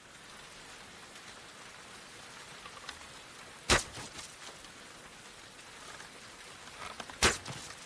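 A bow and arrow being shot twice: two sharp snaps about three and a half seconds apart, each with a few faint small sounds just before it, over a steady hiss.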